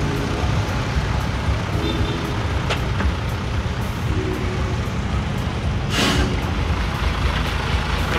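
Engine of a truck-mounted crane running steadily with a low rumble, and a short burst of hiss about six seconds in.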